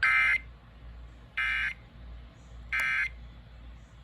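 Emergency Alert System end-of-message (EOM) data tones: three short, identical bursts of SAME digital tones about 1.3 seconds apart, the first the loudest, signalling the end of the required monthly test.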